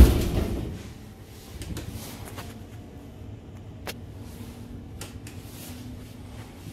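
A sudden heavy thump right at the start that dies away within about a second, then the quiet interior of an NMBS MS75 train with a faint steady hum and a few light clicks and knocks.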